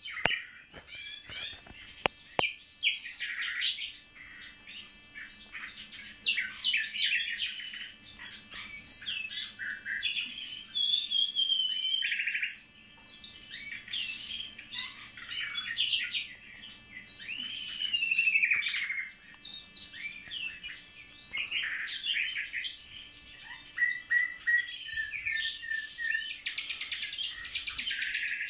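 Nightingales and a blackcap singing, a dense run of varied whistled phrases, slurred notes and trills. Near the end come a series of repeated notes and then a fast, high trill.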